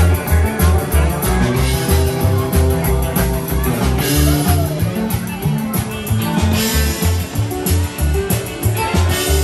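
Live honky-tonk country band playing: an upright bass holds a steady pulse of about two notes a second under drums with cymbals, and an electric guitar plays the lead.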